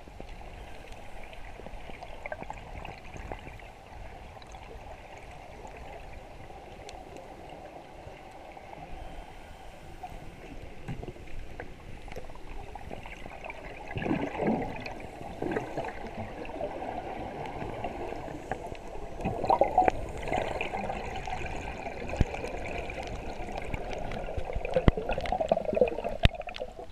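Muffled underwater water noise picked up by a GoPro in its housing during a freedive: a steady rush with irregular gurgles and swells, louder in patches in the second half.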